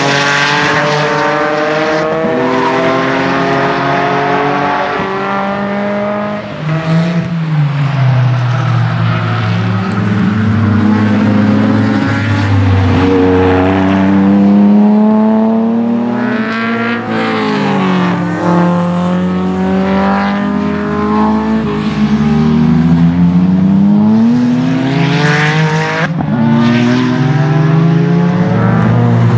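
Tuned twin-turbo Porsche 997 GT2 flat-six accelerating hard on track. The engine pitch climbs and drops back at each gear change, and falls sharply each time the car goes by, several times.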